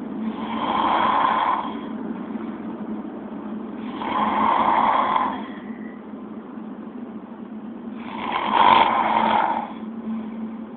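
A person snoring: three loud snores about four seconds apart, each lasting about a second and a half, over a steady low hum.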